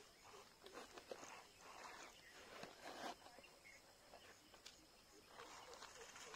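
Faint, irregular crunching and scraping of loose soil and pebbles as a small handmade toy loader's bucket pushes through dirt, with a few small clicks.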